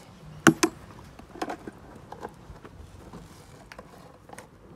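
Two sharp knocks close together about half a second in, followed by a few fainter, scattered clicks and taps over a faint low background noise.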